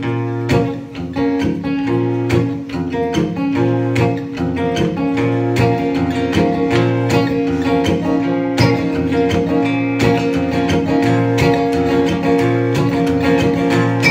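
Live instrumental intro of an acoustic folk song: a strummed acoustic guitar and a picked mandolin-family instrument playing together, with no vocals yet.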